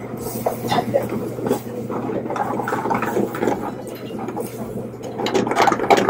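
Metal ladle scraping and clinking against an aluminium frying pan as a cream sauce is stirred over a gas burner, over a steady low kitchen hum; the clatter gets louder near the end.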